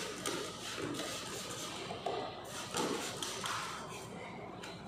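Detailing brush scrubbing degreaser over the plastic and metal parts of a car's engine bay: irregular scratchy strokes, with a couple of short louder rushes about two and a half and three and a half seconds in.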